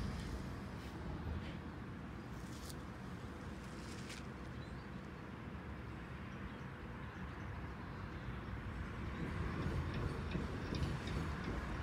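A passing tram's low rumble fading away, leaving quieter street noise with two sharp clicks. Near the end, a rail vehicle's rumble grows louder as it approaches.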